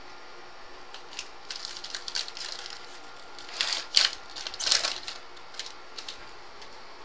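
Trading card pack wrapper being torn open and crinkled by hand, in irregular crackling bursts that are loudest about four seconds in.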